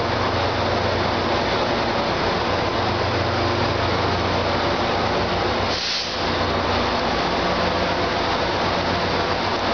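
Commuter train locomotives running steadily under a station train shed: a constant deep engine hum. There is a short hiss about six seconds in.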